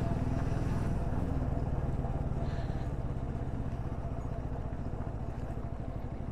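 TVS Apache RTR 200 4V's single-cylinder engine running steadily while riding, a dense pulsing rumble that gets slowly a little quieter.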